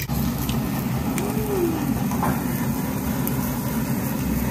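Steady low rumble with a faint hiss above it: restaurant background noise around a tabletop barbecue grill with beef cooking on it.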